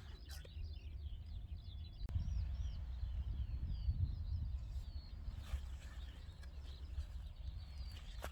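Several small birds chirping and singing in quick, short calls, over a steady low rumble.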